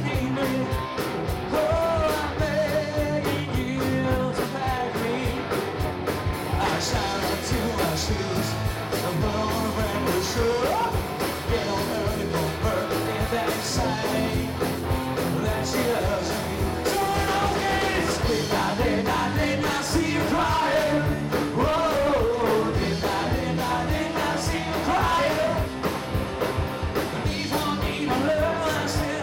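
Live rock cover band playing: a male singer over electric guitars and drums with a steady beat.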